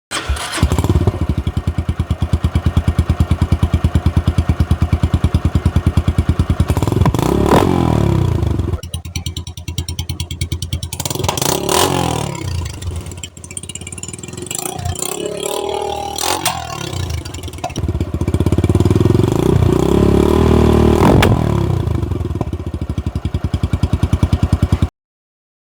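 Motorcycle fitted with an aftermarket exhaust silencer idling with a fast, even putter. It is revved about four times, each rev climbing and then falling back. The sound cuts off abruptly near the end.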